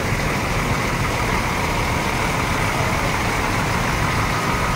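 Mercedes-Benz coach's diesel engine running steadily at low revs as the bus creeps forward close by.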